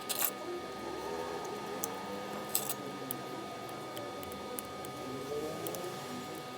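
A few sharp, small clicks and clinks of small metal objects being handled, the strongest near the start and about two and a half seconds in, over a faint background murmur.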